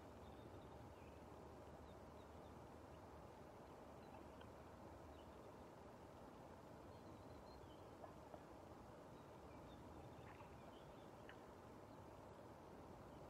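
Near silence: a faint steady outdoor background with a few faint, scattered high bird chirps, and two soft clicks a little past the middle.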